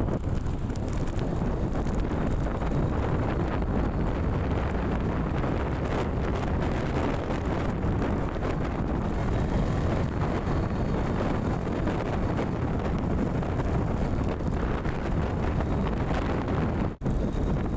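Steady wind noise buffeting the microphone, a continuous low rumble with no pauses, broken by a brief dropout near the end.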